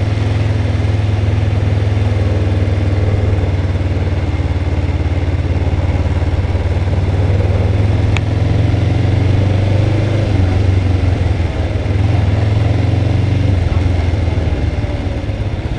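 Motorcycle engine running steadily at low, even revs, with a slight change in its note about ten seconds in.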